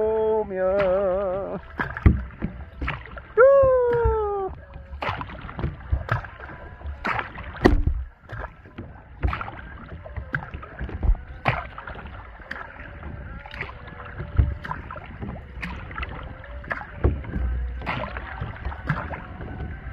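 Wooden kayak paddle blades dipping into and pulling through lake water, making splashing strokes about once a second, with drips and water sloshing against the hull. A voice holds a sung note at the very start and makes a short falling vocal sound about three to four seconds in.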